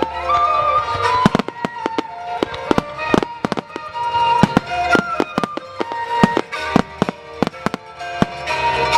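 Fireworks bursting in rapid, irregular succession, many sharp bangs and cracks, over music with held melodic notes.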